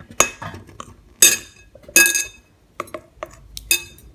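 Metal spoon stirring a thick peppermint fondant mixture in a heatproof glass bowl, clinking against the bowl several times at uneven intervals, some strikes ringing briefly.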